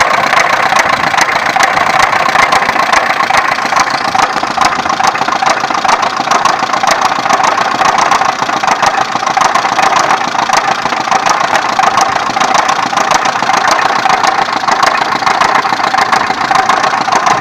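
Opel X20XEV 2.0-litre 16-valve four-cylinder engine idling steadily with a rapid, regular knock from inside the engine, the fault the video sets out to show.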